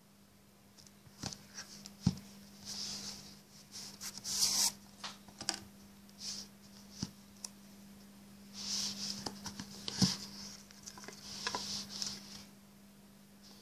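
Hands handling a cardboard smartphone box: rubbing, scraping and light knocks as the box is turned over and its lid is drawn off the inner tray, with a sharp knock about two seconds in and another near ten seconds. A steady low hum runs underneath.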